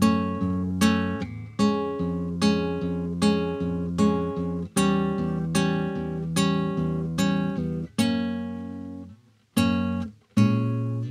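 Manuel Rodriguez Model C nylon-string classical guitar played with chords and notes struck at an even, unhurried pace, each left to ring. Near the end the sound dies away almost to nothing for about a second before the chords start again.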